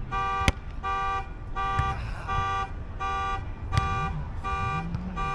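An alarm beeping in a steady pulse, about two beeps a second, each beep a buzzy multi-toned note. About half a second in, a hand strikes a volleyball with one sharp slap.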